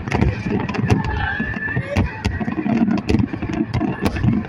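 Fireworks finale: aerial shells bursting in rapid succession, a dense run of sharp bangs and crackles over a continuous low rumble.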